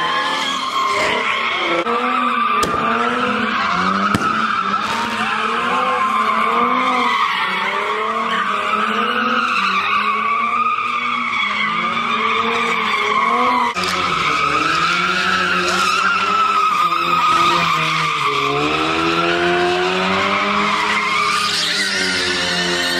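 A car doing donuts: its tyres squeal without a break while the engine revs rise and fall about once a second with each spin. The sound breaks off briefly about 14 s in, and later a long rev climbs steadily as the squeal carries on.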